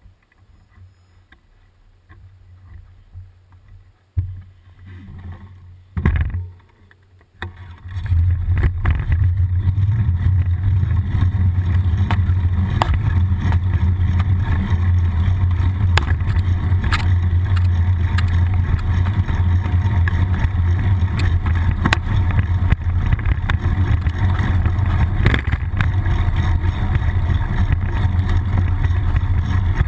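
Wind and road noise on a bicycle-mounted GoPro HERO as the bike gets moving: a few knocks in the first seconds, then from about eight seconds in a loud, steady low rumble with small rattles and clicks as the bike rides along.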